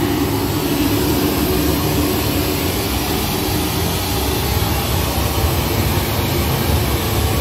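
Pink noise played through a large PA sound system while it is being tuned with a real-time analyser: a loud, steady, even hiss across the whole range.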